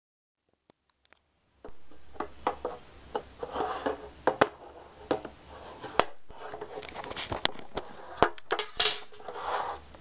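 Handling and opening a printed metal Zippo gift tin: a string of sharp clicks and knocks from the tin and its lid, with rustling in between.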